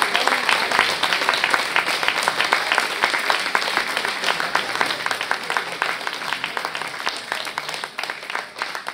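Theatre audience applauding, the dense clapping thinning and growing quieter toward the end.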